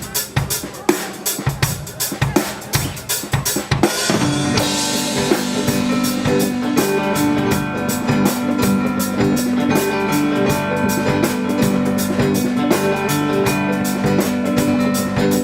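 Live rock band: a drum kit plays alone for about four seconds, then the full band comes in with a crash, held keyboard or guitar chords and bass over the continuing drum beat.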